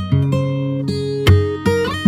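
Background music: an acoustic guitar strumming sustained chords, with a short upward slide between chords near the end.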